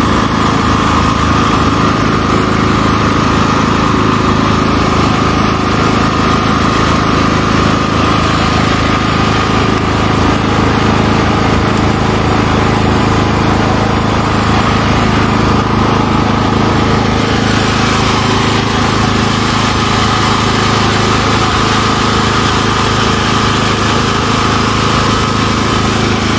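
Steady, loud engine drone from nearby machinery, unchanging in pitch and level, with a hiss above it that brightens about two-thirds of the way in.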